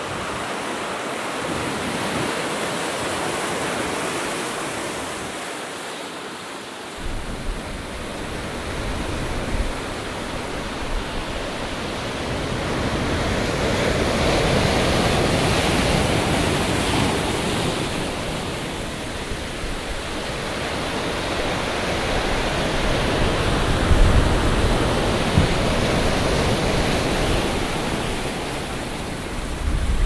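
Atlantic surf: a steady rush of breaking and washing waves that swells and fades over several seconds at a time. Wind rumbles on the microphone from about seven seconds in.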